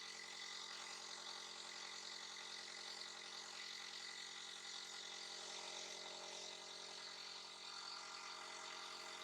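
Steady mechanical hum of a small motor running evenly.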